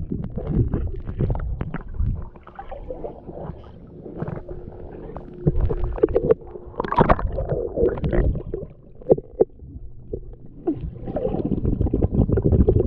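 Muffled underwater sound of swimming-pool water heard through a submerged GoPro: churning and gurgling water with many small knocks and bumps.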